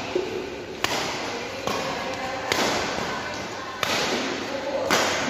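Badminton rackets hitting a shuttlecock back and forth in a rally: five sharp smacks roughly a second apart, each echoing in a large indoor hall.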